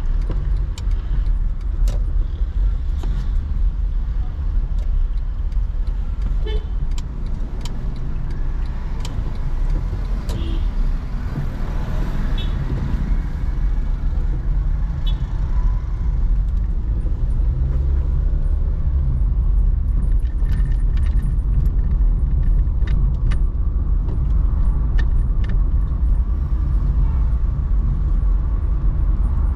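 Car driving on city streets: a steady low rumble of engine and road noise, with scattered short clicks and rattles.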